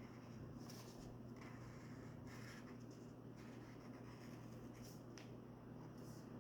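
Faint scratching of a black Posca paint marker's tip drawing short strokes on paper, several strokes spaced about a second apart, over a steady low hum.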